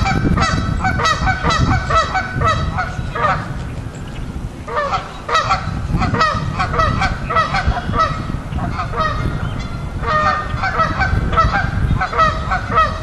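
A flock of geese honking: many short calls overlapping in quick succession, easing off briefly about four seconds in before picking up again.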